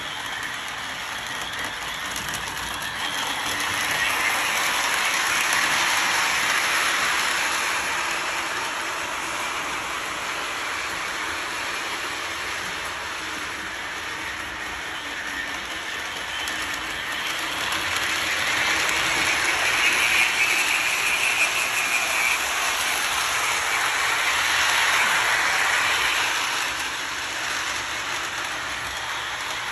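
Lionel O-scale Mickey's Christmas Train running on three-rail track, a steady clatter of wheels and motor that grows louder twice as the train comes near.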